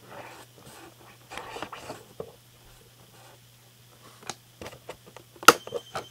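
Rustling and scraping of box packaging being handled, then a few sharp clicks near the end. The loudest, about five and a half seconds in, is the snip of the wire tie holding the plane in its box being cut.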